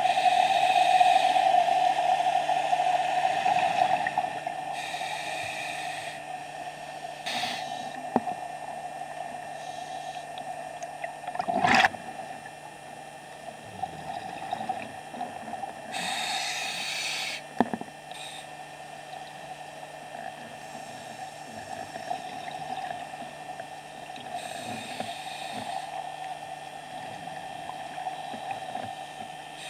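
Underwater sound of a scuba dive: a steady hum, with a few bursts of bubbling hiss from a diver's regulator exhaling. A few sharp clicks, the loudest about twelve seconds in.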